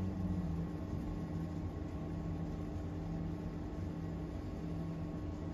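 Steady low mechanical hum with a faint even hiss underneath.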